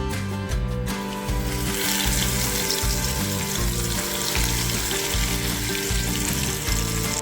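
Food sizzling as it fries in a pan, starting about a second in and cutting off suddenly at the end, over background music.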